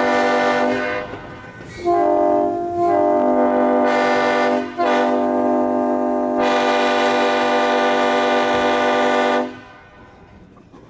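Nathan P5 five-chime air horn on an electric freight motor, sounding a grade-crossing signal in long blasts: one ending about a second in, another from about two seconds, a brief break near five seconds, then a final long blast that cuts off near the end.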